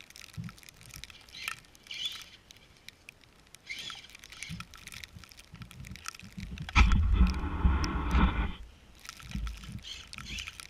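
Traxxas Summit RC truck driving in snow: after some light crackling and pattering, its electric motor and drivetrain whine in a loud burst about seven seconds in, lasting under two seconds, with a deep rumble under it, and again more briefly near the end.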